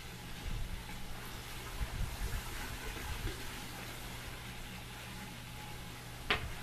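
Steady trickle of a small tiered patio water fountain over a low steady hum, with a single sharp clack of clay casino chips being handled near the end.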